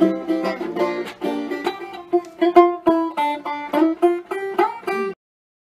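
Plucked-string instrumental music, a run of quick picked notes, that cuts off abruptly about five seconds in.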